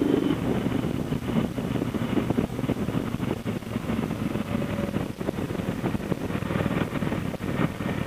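Triumph America motorcycle's parallel-twin engine running on the road, its note easing off just after the start and then largely covered by heavy wind buffeting on the handlebar-mounted microphone.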